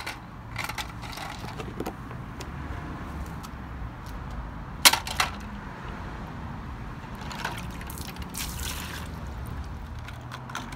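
A child playing with toy cars and a plastic bucket of water: light splashing and sharp little clacks, the loudest pair about five seconds in, over a low steady background rumble.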